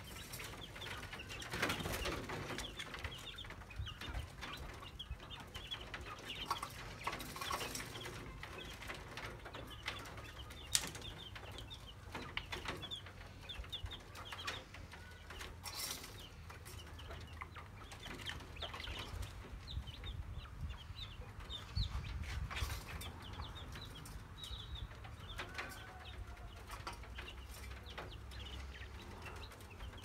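Quail and a baby chick in a wire-mesh cage: many short, high chirps go on throughout, with a few sharp clicks among them.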